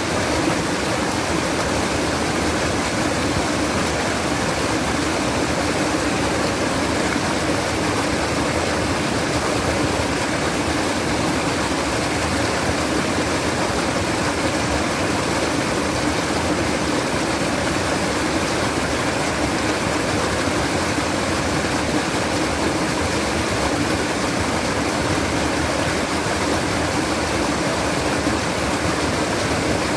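Water trickling and running steadily in a stream, one even, unchanging sound.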